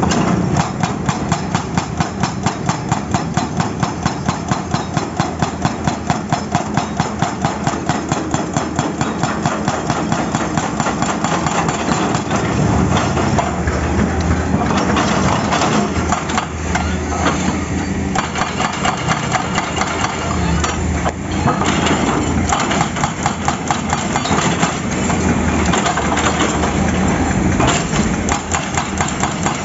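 Excavator-mounted hydraulic breaker hammer pounding asphalt in rapid, even blows, about four a second, over the excavator's diesel engine. About halfway through the fast hammering gives way to the engine running with irregular knocks.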